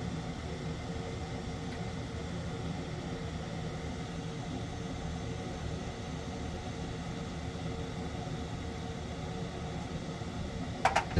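Water heater power-vent motor running with a steady hum and a faint steady tone, supplying the pressure used to trip the pressure switch. Two or three sharp clicks come near the end.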